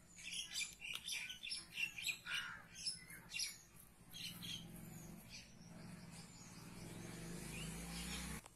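Birds chirping in a quick series of short, high calls for the first three seconds or so. A low steady hum then rises slowly and cuts off suddenly near the end.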